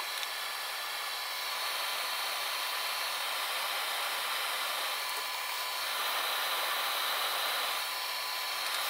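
Benchtop solder fume extractor fan running steadily, an even whooshing hiss.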